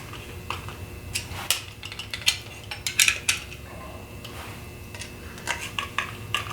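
Sharp metallic clicks and clinks of hand tools on stainless steel screws and bolts being snugged up on a transducer bracket, coming in short clusters.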